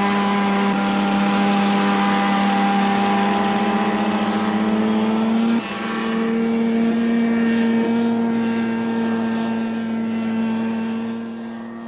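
Pindair Skima 4 inflatable hovercraft running, a steady engine and propeller drone. About halfway through, the pitch steps up slightly and abruptly, and the sound fades away near the end.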